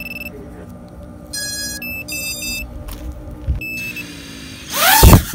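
FPV freestyle quadcopter being powered up: its ESCs play a few short sequences of beeping tones through the brushless motors. Near the end the motors spin up in a loud surge of whine for takeoff.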